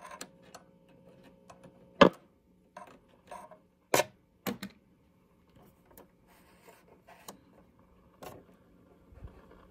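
AA5 tube radio's speaker humming steadily, broken by sharp, irregular crackles and pops, the loudest about two and four seconds in, with no station coming through: the sign of bad connections, which the owner puts down to a loose tube or heat-baked tube sockets.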